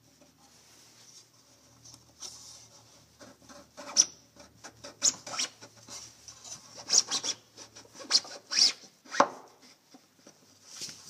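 Rudder post with white bushings being pushed up into its channel through a racing shell's hull, rubbing and scraping with irregular clicks and knocks, the loudest knock near the end. The post does not slide up smoothly: the bushings fit snugly in the channel.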